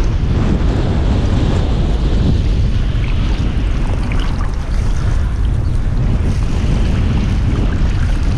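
Wind buffeting the microphone over surf washing around a wading fisherman, a steady rumbling rush.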